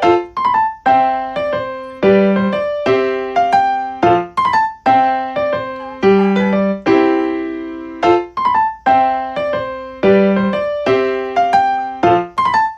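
Background music: a light electric-piano melody of plucked-sounding notes in a steady, even rhythm.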